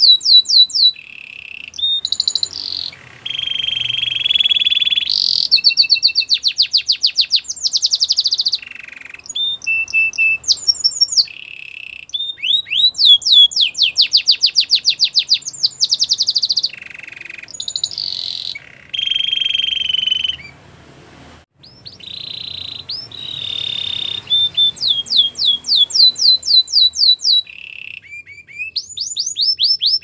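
Canary singing a long, loud song of rapid trills: fast runs of repeated high sweeping notes alternating with lower, steady rolling tours, with a short break about two-thirds of the way through.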